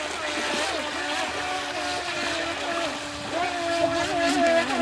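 Two FT007 mini RC boats running flat out, their brushed electric motors and props giving a high whine that wavers up and down in pitch with the throttle. The whine grows louder over the last second and a half or so.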